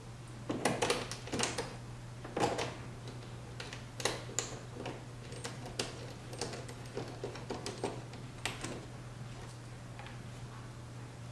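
Irregular clicks, taps and rustles of hands handling the plastic fender liner and its small screws at a C7 Corvette's front wheel well, over a steady low hum.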